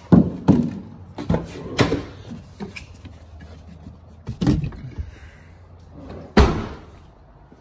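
A 1995 Honda Civic's door being worked: several clunks and knocks as the door opens and things are handled inside the car, then a heavy door slam about six seconds in, the loudest sound.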